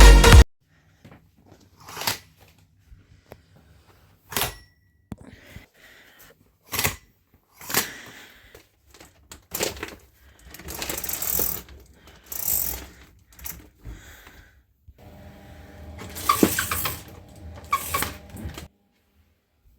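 Scattered clicks, knocks and short rustles, as of small objects being handled and put down in a small room, with a busier spell of clattering near the end. The electronic dance music cuts off right at the start.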